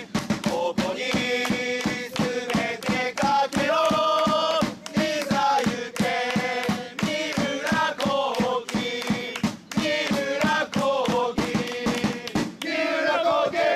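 Football supporters' individual player chant: a group of voices singing in unison to a steady drum beat. Near the end the singing gives way to a shouted call.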